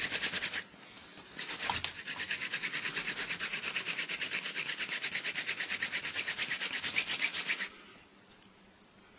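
Bow-less hand drill: a royal empress tree (paulownia) spindle twirled back and forth between the palms, its tip grinding in a balsam fir hearth board with a fast, pulsing scratchy rasp, several strokes a second, as friction builds toward an ember. The grinding breaks off briefly about a second in, resumes with a single sharp click, and stops abruptly near the end.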